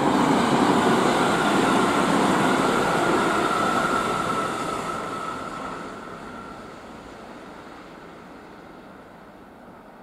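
Electric train running past on the track, a loud rumble of wheels on rail with a steady high whine, fading away over the second half.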